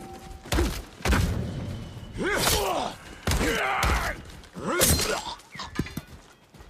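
Fight sound effects: a string of sharp hits and thuds, with three strained shouts or grunts of effort between them.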